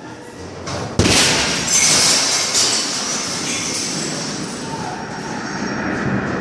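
Blast of a large explosion arriving about a second in as a sharp bang, followed by several seconds of loud rumbling and high rattling noise that slowly eases.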